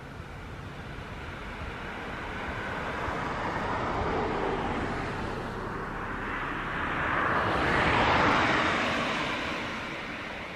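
A vehicle passing out of view: a steady rushing noise that swells, peaks about eight seconds in, then fades.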